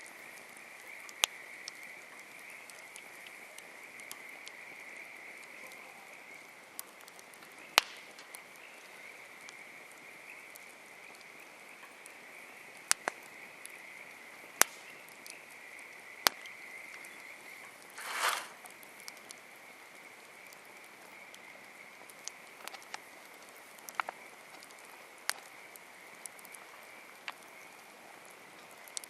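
Wood campfire crackling: scattered sharp pops at irregular intervals, a few of them loud, and a brief denser burst of crackle about eighteen seconds in. Under it runs a steady high-pitched animal chorus.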